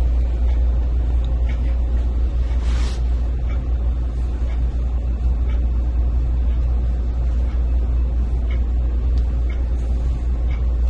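A steady low rumble of background noise, with a brief rustle of bed linen a little under three seconds in and a few faint handling sounds as the sheet and blanket are smoothed over the patient.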